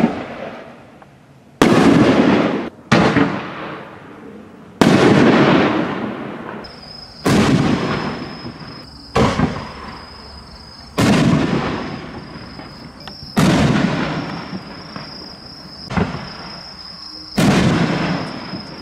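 Reloadable 5- and 6-inch canister firework shells firing from mortar tubes and bursting overhead: about nine sharp booms, one to two and a half seconds apart, each dying away slowly. A thin steady high tone runs beneath the second two-thirds.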